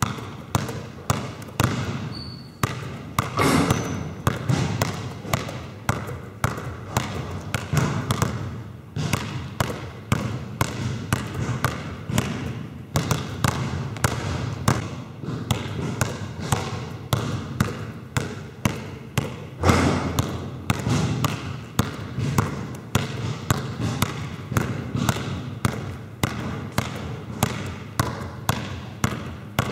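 Two basketballs dribbled at once on a sports-hall court floor, in a quick, steady rhythm of bounces.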